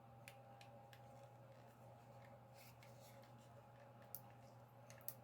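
Faint, scattered clicks and light taps of a plastic action figure's parts being handled and turned at the joints, over a low steady hum.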